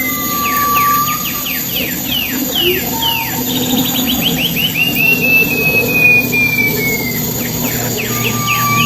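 Pipi perak songbird singing a loud, varied song: quick runs of sharp downward-slurred notes mixed with long, slowly falling whistles and short lower whistles, over a steady low hum.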